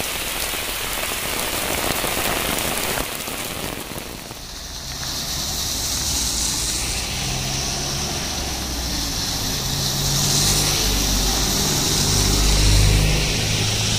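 Rain falling on an open umbrella. About four seconds in it changes to rain on a wet road, with motor vehicles passing through the spray and a low engine hum that grows loudest near the end.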